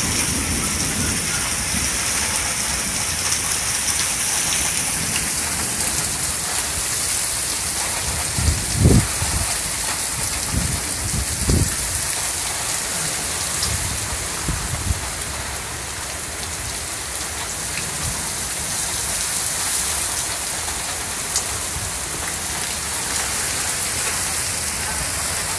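Heavy rain pouring down in a violent thunderstorm, a steady dense hiss, with a few brief low rumbles about nine and eleven seconds in.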